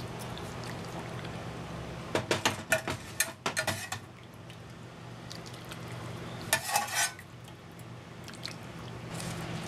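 Metal spoon clinking and scraping against a metal cooking pot while soup is stirred: a run of clinks about two seconds in and a shorter one near seven seconds, over a steady low hum.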